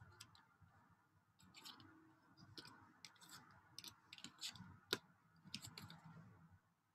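Tarot cards being picked up and gathered off a cloth reading mat: faint scattered clicks and soft sliding of card against card, with one sharper click about five seconds in.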